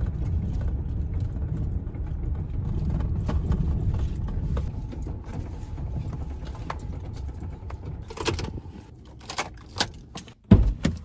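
A Ford F-150 pickup driving slowly over a dirt lot, heard inside the cab: a steady low engine and road rumble with scattered rattles and knocks. Near the end the rumble drops away, followed by a few sharp clicks and a thump as the gear shifter is worked.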